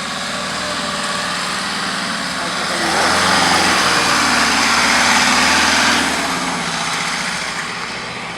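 Off-road 4x4 vehicle's engine working under load. It grows louder for about three seconds in the middle, then eases off.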